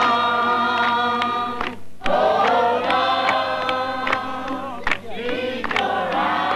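A crowd of young people singing together in chorus, holding long notes in phrases that break about two seconds in and again around five seconds, with a few sharp clicks.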